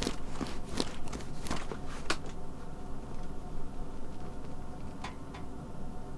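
A quick run of light taps and soft knocks, like a cat's paws pattering and scampering on the floor, through the first two seconds, then two faint ticks about five seconds in, over a steady low hum.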